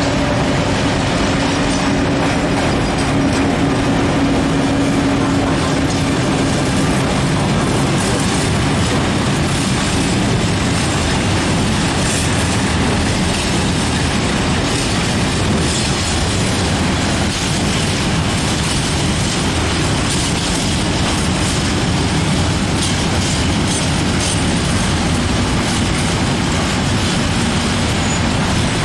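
Freight train of open-top wagons rolling past behind a red ÖBB electric locomotive: a loud, steady noise of steel wheels on rail, with a low steady hum during the first several seconds as the locomotive goes by.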